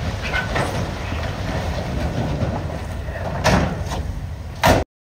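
Dump truck tipping a load of broken rock: a diesel engine runs under the clatter of rocks sliding out of the raised steel bed. Two loud crashes come about three and a half seconds in and again near the end, then the sound cuts off suddenly.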